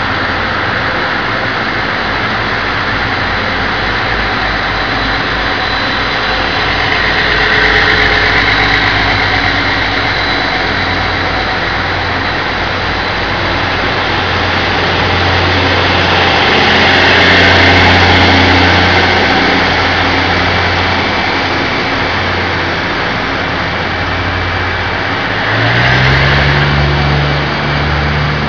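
Diesel-hauled passenger train pulling slowly out past the platform: a steady low diesel drone with wheel and rail noise that swells twice. Near the end an engine note rises.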